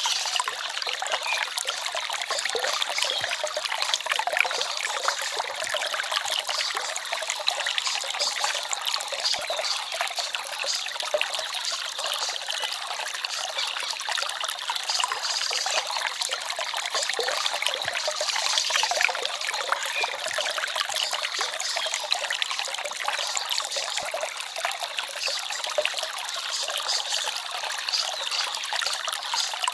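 Small forest stream trickling and babbling over stones, steady and unbroken.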